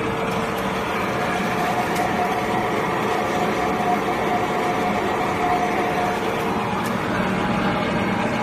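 100L vacuum homogenizer mixer running with its mixing motor on, a steady mechanical hum. A steady whine sits on top of it from about a second in until about six seconds in.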